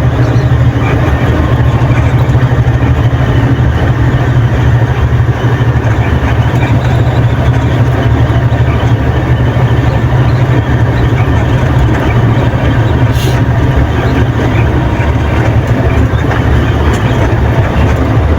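Dump truck driving along a road, heard from inside the cab: a steady low engine drone with road noise, running evenly with no change in speed.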